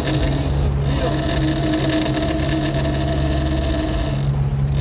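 Outboard motor running steadily as the small boat moves under way, with a continuous rush of wind and water over it.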